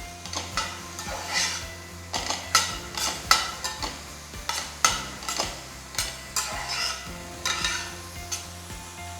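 Mushrooms, onion and sliced baby corn sautéing in butter in a pan, stirred with a utensil: irregular scrapes and knocks against the pan over a light sizzle, busiest in the middle stretch.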